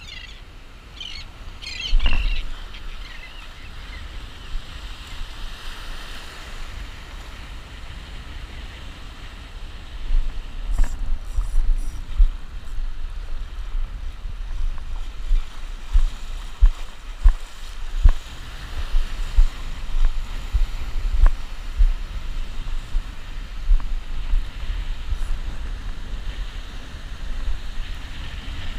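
Waves breaking and washing in shallow surf, with wind buffeting the microphone in uneven gusts from about ten seconds in. A few short high chirps sound in the first couple of seconds.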